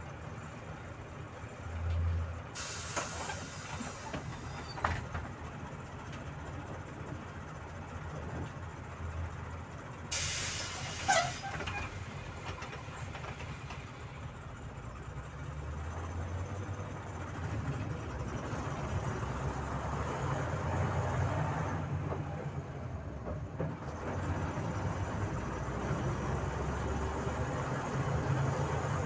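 Inside a Volzhanin-5270 city bus under way: a steady low engine and road rumble that grows somewhat louder after the middle. Two sharp hisses of compressed air from the bus's pneumatic system come about two and a half seconds in and again about ten seconds in.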